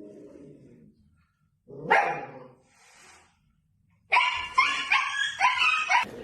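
Dog barking: one loud bark about two seconds in, then a quick run of about five high-pitched barks near the end. A low drawn-out sound fades out in the first second.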